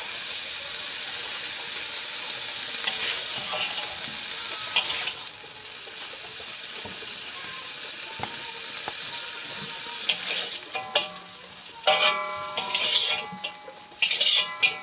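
Papaya shoots sizzling in a hot wok as they are stirred and scooped out with a metal spatula. Toward the end the spatula knocks and scrapes against the near-empty metal wok, which rings with each strike.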